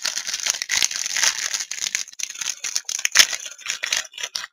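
Plastic wrapper of trading-card promos being torn open and crinkled by hand: a dense run of crackles and snaps, with one sharper snap a little past three seconds in.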